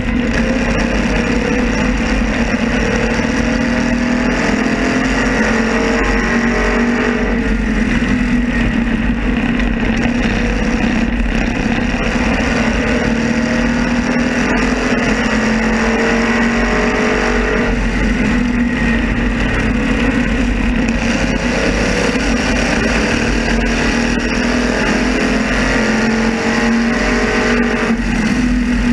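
Modified race car engine heard from an onboard camera, running steadily at speed with its pitch swelling and easing a little, with other modifieds running close alongside.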